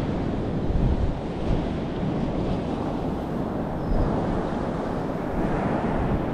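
Ocean surf breaking and washing up the beach, a continuous rushing noise, mixed with wind buffeting the microphone in uneven gusts.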